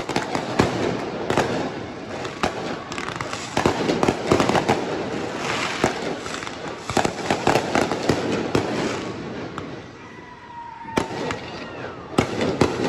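Fireworks going off in quick succession: many sharp bangs and crackles, with a short lull about ten seconds in before more bangs.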